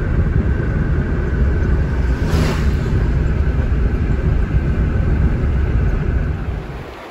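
Road and engine noise inside a moving car's cabin: a steady low rumble, with a brief hiss about two seconds in.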